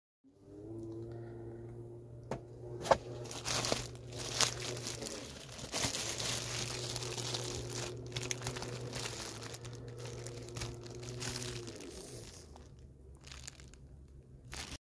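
Thin plastic food bags crinkling and rustling as they are handled, most of the way through, over a steady low hum.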